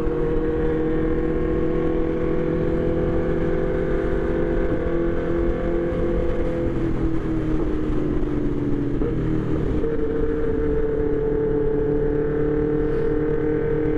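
Sport motorcycle engines running at highway cruising speed, a steady engine drone over wind rush; the engine note dips about six seconds in and rises again near ten seconds.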